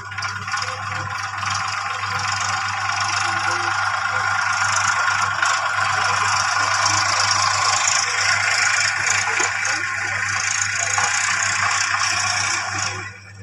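Plastic toy tractor and trailer pushed by hand across a tiled floor, its wheels rolling with a steady rattle that stops suddenly near the end. A steady low hum runs beneath.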